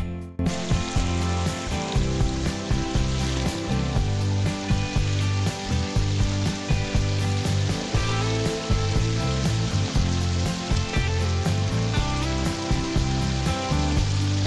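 Steady hiss of falling rain, with guitar background music continuing underneath.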